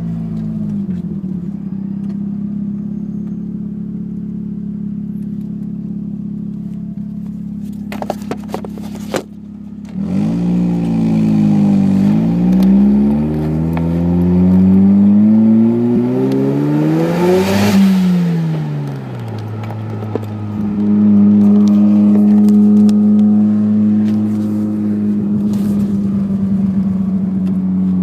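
Mazda RX-7 FC turbo's 13B twin-rotor rotary engine through a 4-inch stainless exhaust, heard from inside the cabin. It holds a steady cruise, then from about ten seconds in it climbs in revs under boost to a peak. A short hiss comes from the Turbosmart blow-off valve venting as the throttle closes, and the revs fall and settle back to a steady cruise.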